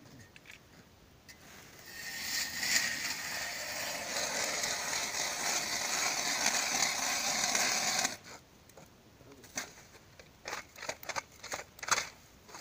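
Ice auger cutting into lake ice: a steady grinding scrape for about six seconds that stops suddenly, followed by several short knocks.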